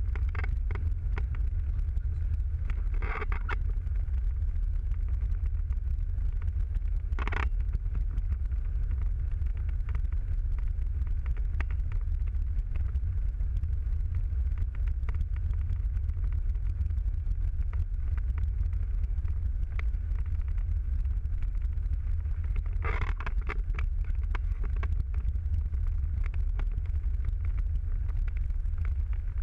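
A car driving steadily on a country road, heard from inside the cabin: a constant low rumble of engine and tyres, with many faint ticks and three brief louder sounds, about 3 seconds in, about 7 seconds in and near the end.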